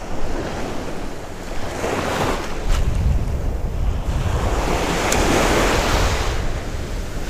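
Ocean surf breaking and washing up on the shore close by, swelling twice as waves come in, with wind buffeting the microphone.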